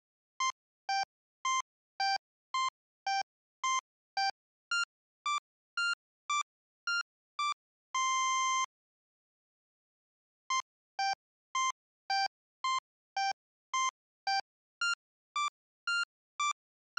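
A simple electronic jingle of short beeping notes, about two a second, in a bouncing melody that climbs and ends on one longer held note about eight seconds in. After a gap of about two seconds the tune starts over.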